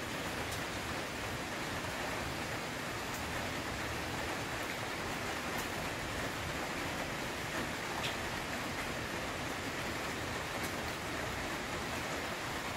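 Steady rain falling, an even hiss with a few faint ticks of single drops every couple of seconds.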